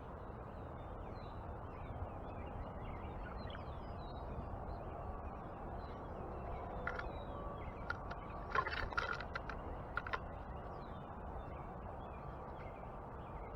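Backyard songbirds chirping faintly and intermittently over a steady outdoor hum, with a short burst of sharp clicks and harsh notes about eight to ten seconds in.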